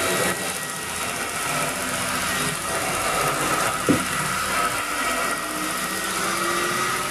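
Electric hair clippers buzzing steadily as they cut along the top of a head, with one brief tap about four seconds in.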